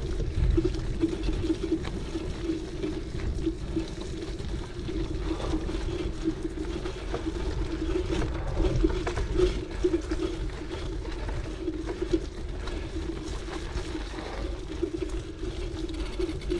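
Cyclocross bike's knobby tyres rolling fast over a hard-packed dirt trail: a steady tyre hum under wind rushing over the microphone, with small rattles and clicks from the bike over bumps.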